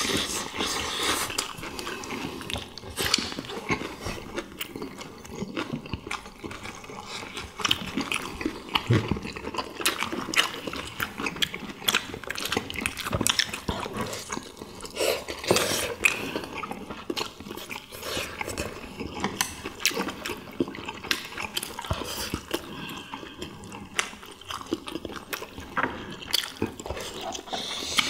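Several people eating at once: wet chewing and slurping, with wooden chopsticks clicking against ceramic bowls and plates.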